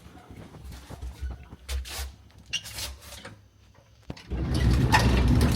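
Old Soviet apartment-building elevator: a few scattered clicks and knocks of its doors and mechanism. About four seconds in comes a sharp clack, then a loud low mechanical hum.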